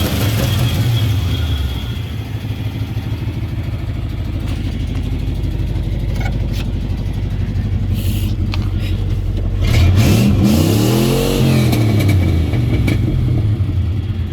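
350 small-block V8 with a Quadrajet carburetor in a 1985 GMC 3/4-ton pickup, running. The engine settles back to a steady idle early on, then about ten seconds in it is revved once, rising and falling back, and it sounds healthy: 'mint'.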